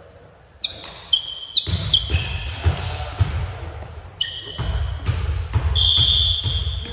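Sneakers squeaking on a hardwood gym floor as volleyball players shift and move, a string of short squeaks with one longer squeak near the end, over scattered dull thuds.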